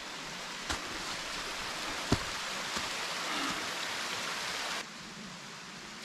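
Steady rush of running water from a forest stream or small waterfall, with a sharp click about two seconds in. The rush drops suddenly to a quieter hiss near the end.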